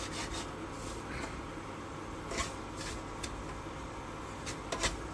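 Wooden spatula scraping and stirring semolina as it roasts in ghee in a nonstick wok, with short scrapes at irregular intervals, about one a second.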